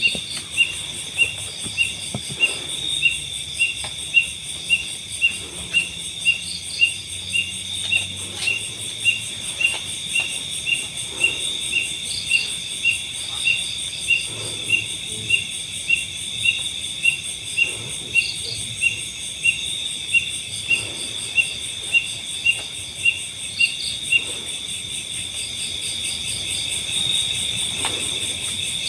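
Insect chorus: a steady, high-pitched insect drone, with a cricket-like chirp repeating about twice a second that stops a few seconds before the end, and scattered short chirps above it.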